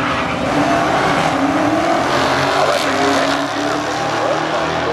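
Two cars launching off a drag strip start line and accelerating hard down the track at full throttle, engine pitch climbing and shifting as they pull away.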